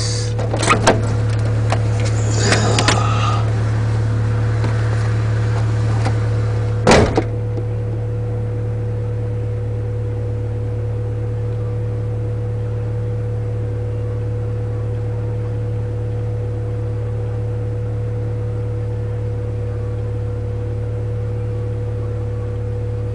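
Steady low hum of a car engine idling. A few clicks and rattles come in the first seconds, and one sharp knock about seven seconds in, like a door or latch.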